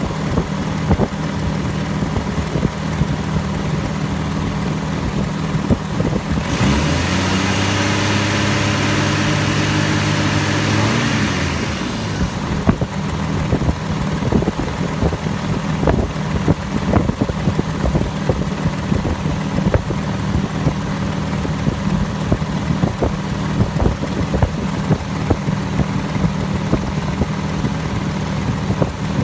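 1998 Jeep Grand Cherokee engine idling with frequent sharp ticks, on a fuel system whose pump the owner suspects is failing. About six seconds in it revs up with a rush of hiss for about five seconds, then drops back to a steady idle.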